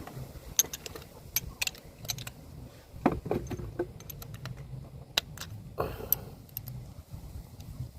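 Metal hand tools clicking and clinking as a ratchet, sockets and extension are handled and snapped together, in a run of sharp separate clinks.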